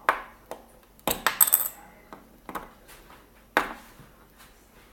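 Hard plastic Lego pieces clicking and clattering as they are handled and pulled apart: scattered sharp clicks, with a cluster about a second in and a louder click past the middle.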